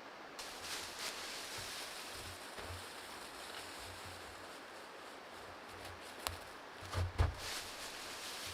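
Rustling of fern fronds and branches being handled and laid over a lean-to shelter frame. A few sharp snaps or cracks come about six to seven seconds in, the loudest around seven seconds.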